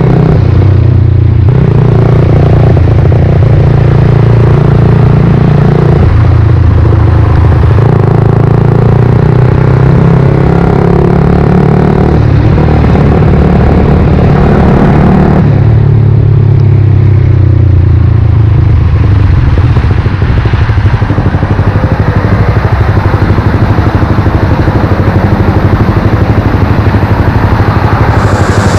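Suzuki GSX-R125's single-cylinder four-stroke engine under way, its pitch climbing and then stepping down several times as gears change. The engine is loud and close, with a noisier, fluttering stretch in the second half.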